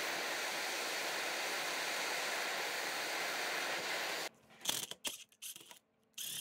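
Handheld gas blowtorch burning with a steady hiss while it heats the rusty steel receiver of an old air rifle; the hiss cuts off suddenly about four seconds in. A few short clicks and knocks follow.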